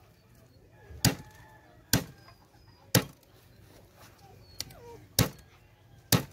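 Heavy knife chopping through a big sweetlips fish into a wooden plank table: five sharp chops, about one a second, with a pause in the middle.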